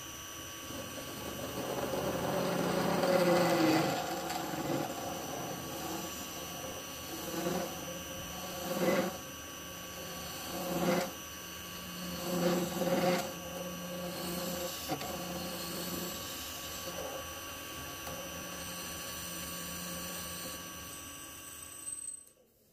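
Wood lathe running with a brass bar spinning in its chuck while a hand-held turning tool hollows the bar's end: a steady motor whine under the scraping of the tool on the brass. The cutting noise swells louder several times, around three, nine, eleven and thirteen seconds in, and the sound cuts off near the end.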